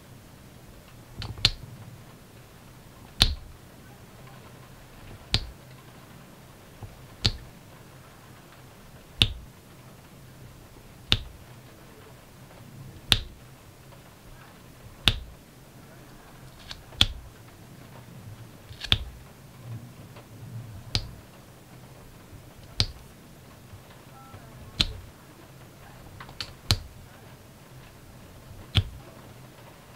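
Diamond-painting applicator pressing resin drills onto the sticky canvas: a sharp click about every two seconds as each row or drill is pressed down, with a few fainter taps between.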